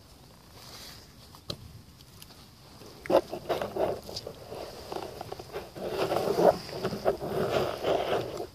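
Rubber waders squelching in thick, wet mud as the legs shift. It starts about three seconds in as a dense, uneven run of wet sucking and slapping noises and stops suddenly at the end.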